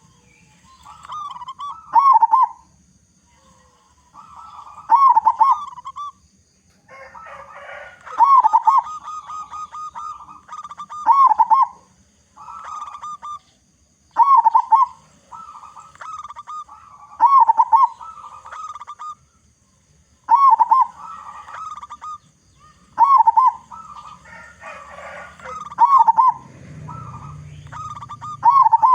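Local zebra dove (perkutut) singing: a loud phrase of quick rolling coos, repeated about every three seconds, with softer coos in between.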